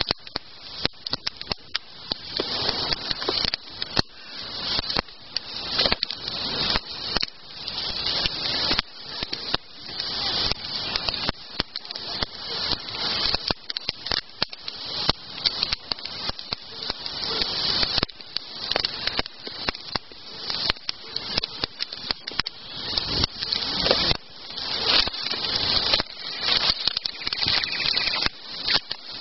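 Wood campfire crackling: a dense run of snaps and pops that swells and falls back every second or two.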